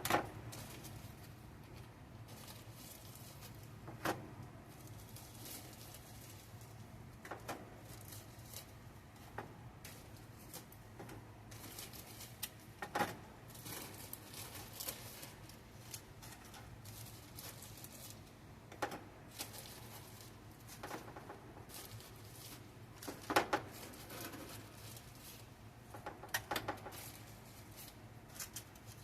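Scattered clicks and light knocks of kitchen items being handled, a few dozen over the stretch and loudest near the start, about halfway through and a little after two-thirds of the way, over a steady low hum.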